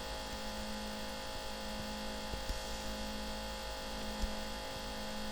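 Steady electrical hum made of several constant tones over a light hiss, with a few faint clicks.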